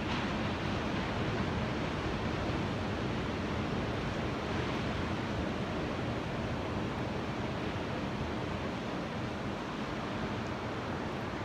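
Ocean surf: a steady wash of waves with no distinct breaks, easing slightly toward the end.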